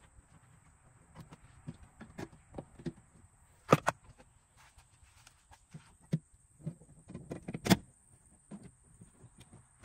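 Scattered clicks, taps and knocks of hands working on a car's interior trim and window parts, with two sharp louder knocks about four seconds apart.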